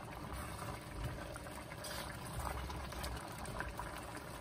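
Chicken pelau bubbling at the boil in a large pot, the rice still wet with too much water, while a metal ladle stirs through it with a few faint scrapes and ticks.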